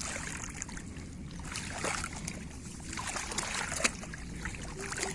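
Water splashing and trickling, with scattered small knocks and one sharp crack about four seconds in.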